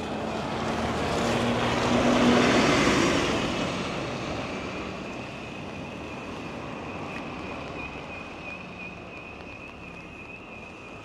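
A bus driving past on a rain-soaked road: the hiss of tyres on wet tarmac and the engine swell to their loudest two to three seconds in, then fade into a steadier hiss of traffic and rain. A thin, steady high tone comes in during the second half.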